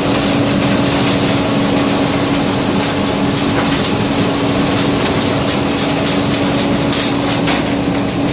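John Deere 9550 combine running steadily while harvesting corn: a constant engine hum with a steady drone and light rattling from the machinery.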